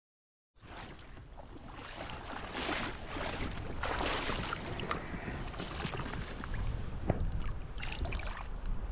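River water splashing and rushing close by, with wind buffeting the microphone in a low rumble.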